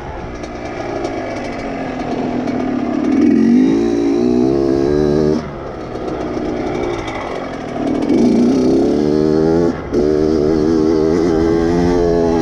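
Kawasaki KX dirt bike engine being ridden hard, its pitch climbing as the throttle opens. The throttle is chopped sharply about five and a half seconds in and briefly again near ten seconds.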